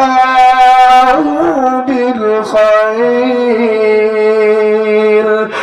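A male reciter chanting the Quran in melodic tajweed style, drawing out long held notes with ornamented pitch turns between them.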